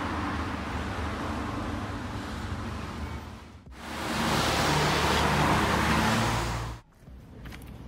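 Traffic on a rain-wet street: steady tyre hiss over a low engine rumble, broken by two abrupt cuts, with the middle stretch louder. Near the end it drops to a much quieter background with a few faint ticks.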